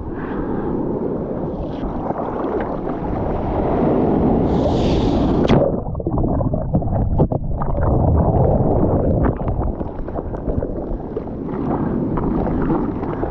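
Seawater rushing and splashing in the surf, with wind buffeting the microphone and a few sharp splashes about five to seven seconds in.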